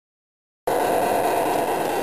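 Silence for about two-thirds of a second, then a steady running noise from a garden-scale model train moving on its track.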